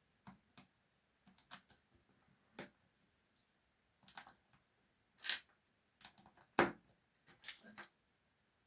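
Irregular light clicks and taps of small hard objects being handled, a few at a time with gaps between, with a sharper knock about five seconds in and the loudest one about six and a half seconds in.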